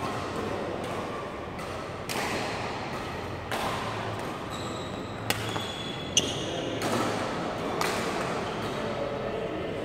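Badminton rackets striking a shuttlecock in a rally, a sharp hit every second or so, with short squeaks of shoes on the court floor partway through. The sounds echo around a large sports hall.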